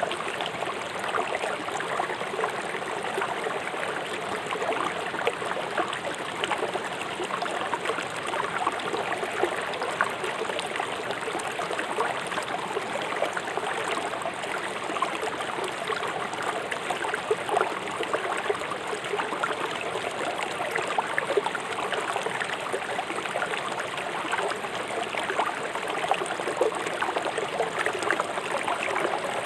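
Fast-flowing river water rushing and splashing over rocks, a steady dense burble.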